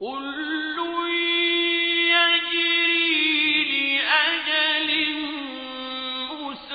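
A male voice reciting the Quran in Arabic in a long, drawn-out melodic line. It begins suddenly out of silence, holds its notes with wavering ornaments, and steps down in pitch about two thirds of the way through.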